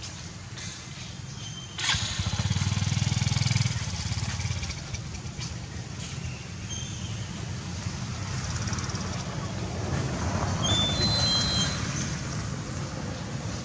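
A nearby motor vehicle's engine running, coming in sharply about two seconds in and loudest just after, then going on at a lower level.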